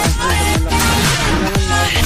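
Background electronic dance music with a steady, regular drum beat and a synth melody.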